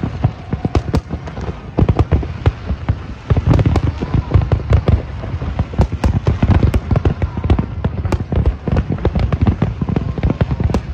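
Large fireworks display: many shells bursting in rapid, overlapping booms and cracks, several a second, over a continuous low rumble.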